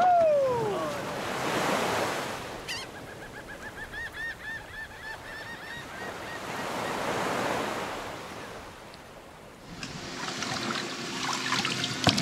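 Surf and wind noise with a bird calling a quick run of repeated notes for about three seconds, after a short falling whoop at the start.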